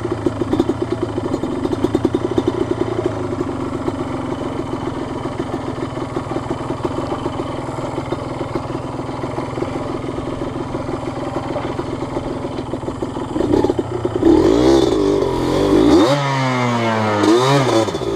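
Yamaha Blaster's single-cylinder two-stroke engine running steadily at low revs, then revved up and down several times during the last few seconds.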